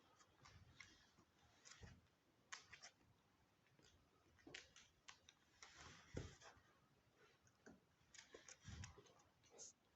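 Near silence with faint scattered clicks and a few soft low thumps.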